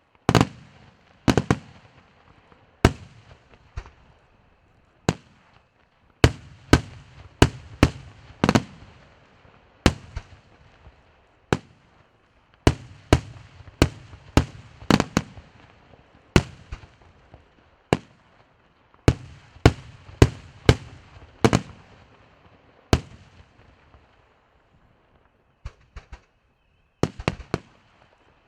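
Fireworks display bursting in an irregular run of sharp bangs, often several a second, each with a short echoing tail. The bangs pause for about two seconds near the end before a few more go off.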